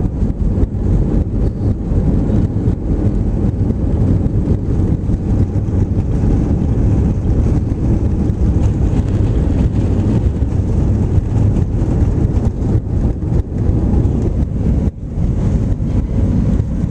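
Cabin noise of an Airbus A320 rolling out on the runway just after landing: a steady low rumble, easing a little near the end as the aircraft slows.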